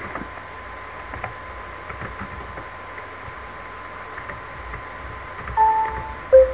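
Light key clicks from a computer keyboard over a steady hiss and a thin steady hum, then, near the end, two short electronic beeps from the poker client as opponents act.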